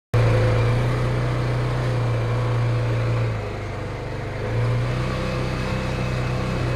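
UTV engine running steadily as it drives, pulling a landscape rake over loose soil; the engine sound drops for about a second a little past the middle, then picks up again.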